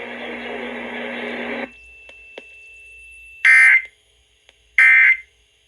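End of an Emergency Alert System broadcast on FM radio. The background hiss of the spoken warning cuts off, then come two short, shrill bursts of digital data tones about a second and a half apart: the end-of-message code that closes the alert.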